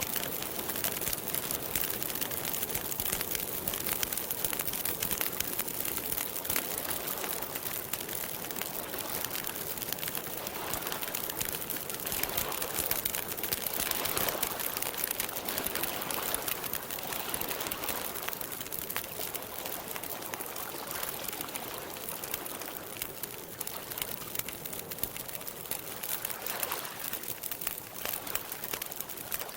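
Campfire crackling steadily, with many small pops.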